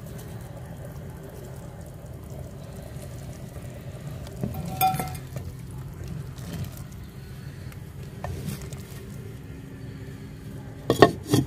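Chana dal simmering in a clay pot while it is stirred with a wooden spoon: a steady low bubbling and scraping. A short metallic clink comes about five seconds in, and a few sharp knocks come near the end.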